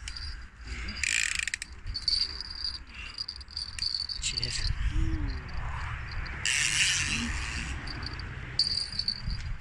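Fishing reel's ratchet clicking in short bursts, three times, over a steady low rumble of wind on the microphone.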